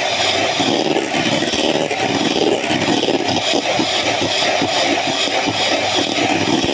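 Handheld electric mixer running steadily, its twin wire beaters whipping cream in a stainless-steel bowl, with an irregular clatter as the beaters knock and scrape against the metal bowl.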